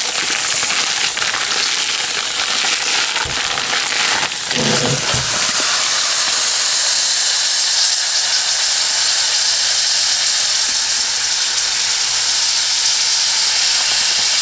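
Frozen corned beef with cabbage, potato and onion sizzling steadily in a hot frying pan. There is a brief knock about four seconds in.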